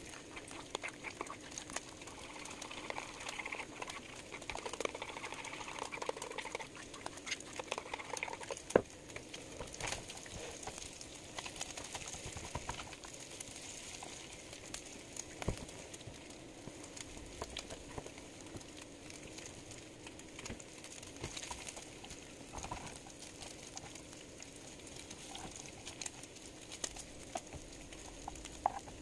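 Bacon sizzling and crackling in a nonstick frying pan as a plastic spatula moves the pieces around, with a few sharper clicks, the loudest about nine seconds in.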